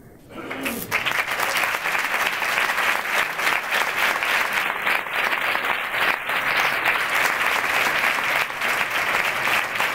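An audience applauding by hand-clapping. The applause starts about half a second in, builds within a second and then holds steady.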